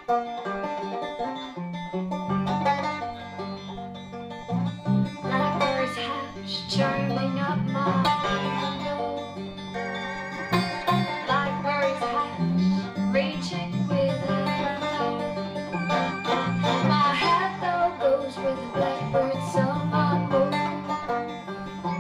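Instrumental background music with plucked string instruments over a steady bass line.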